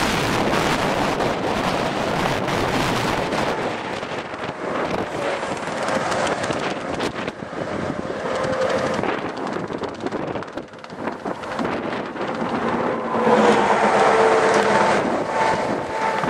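Gusty wind buffeting the microphone in open country, rising and falling. Near the end it grows louder and a faint steady hum joins it.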